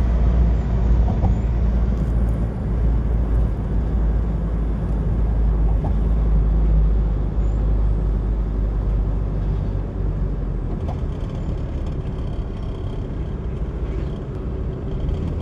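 Steady low rumble of a vehicle on the move, with road and wind noise.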